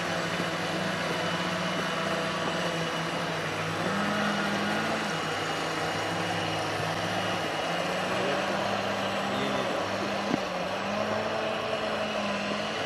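Radio-controlled model boats running, their motors drawing a steady drone that rises and falls in pitch as they are throttled up and down. A single sharp tick about ten seconds in.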